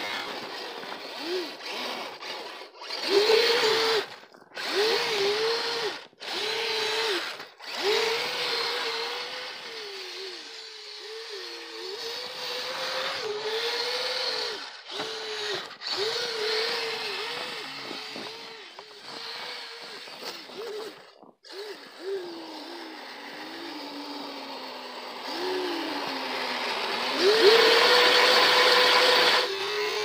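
Kyosho Blizzard RC snow tracker's two brushed Traxxas Titan 380 electric motors and gearing whining in short throttle bursts, the pitch rising and falling with each burst, with brief pauses between. Near the end comes one longer, louder steady run at high pitch.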